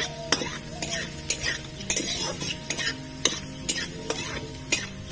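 Flat metal spatula scraping and tapping against an aluminium kadai, stirring a tempering of dry red chillies, cumin seeds and chopped garlic in ghee, about two strokes a second.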